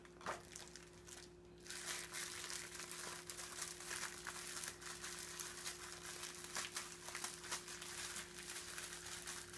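Keebler Town House crackers being crushed by hand into crumbs: a steady run of small crunching crackles that begins after about a second and a half.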